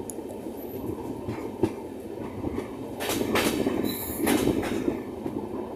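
Passenger train running along the track: a steady rumble of wheels on rails with irregular clacks from the wheels over the rail joints. It grows louder and the clacks come quicker from about three seconds in.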